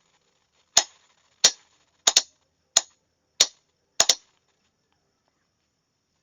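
A Morse signalling key clicking sharply as a code group is sent: about eight dry clicks at uneven spacing, some in quick pairs, with no tone between them.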